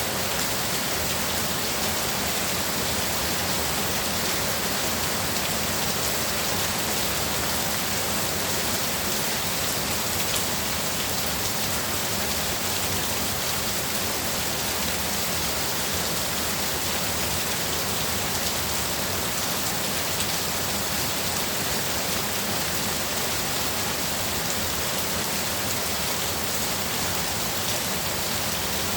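Heavy rain pouring steadily, a dense even hiss of drops hitting surfaces with no let-up.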